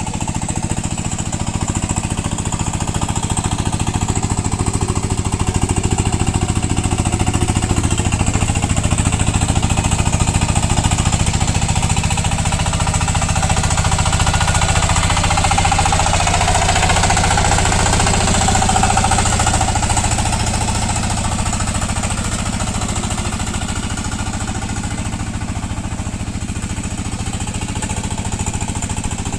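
VST power tiller's single-cylinder diesel engine running steadily with a fast, even knocking beat as it puddles a muddy paddy field, getting a little louder in the middle.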